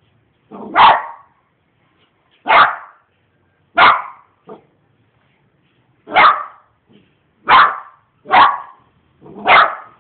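A dog barking at a lizard: seven single barks at uneven gaps of one to two seconds, with a faint short one just after the third.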